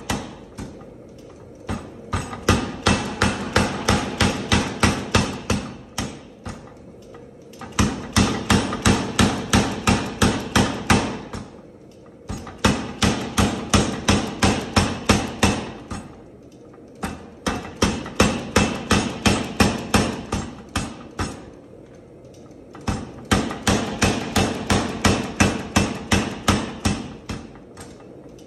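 Homemade 100 lb leaf spring power hammer pounding a bar held on its anvil, in runs of rapid blows at about four a second, each run broken by a pause of a second or two.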